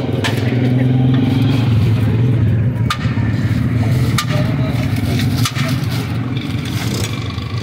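A motor vehicle's engine running close by, a steady low drone, over busy street noise with a few sharp clicks.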